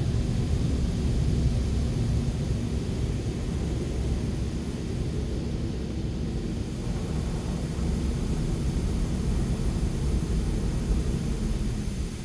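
Steady low rumble of vehicle engines, with a steady hum that drops away near the end.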